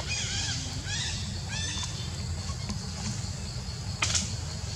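Several short, high chirping animal calls, each rising and falling in pitch, in the first two seconds, over a steady high insect-like buzz and a low rumble. A single sharp click about four seconds in.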